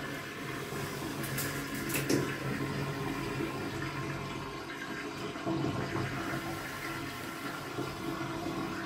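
Water rushing steadily down a bathtub drain as the full tub empties, the drain running freely now that the stopper blocking it has been pulled out.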